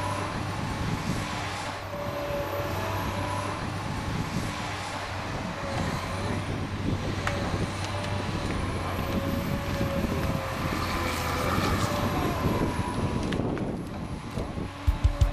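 Tigercat 880 logger working: its diesel engine and hydraulics run steadily with a whine that rises and falls as the boom and grapple swing logs, with a few sharp knocks.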